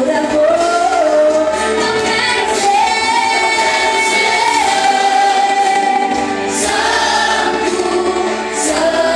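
A group of voices singing a worship song, with long held notes.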